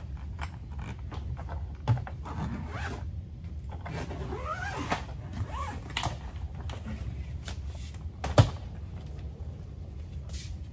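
Belongings being rummaged through and moved in a storage unit: rustling, clicks and knocks, with a sharp knock about two seconds in and the loudest knock a little past eight seconds. A few short rising squeaks come around the middle, over a steady low rumble.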